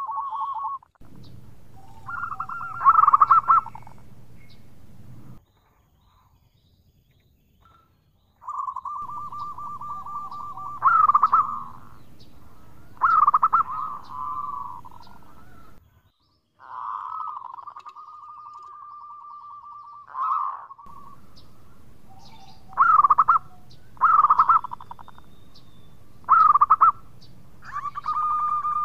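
Zebra dove (perkutut) cooing: phrases of rolling, trilled coos at one steady pitch with short, louder, higher notes, the phrases separated by pauses of a second or two. A low hum runs under several of the phrases.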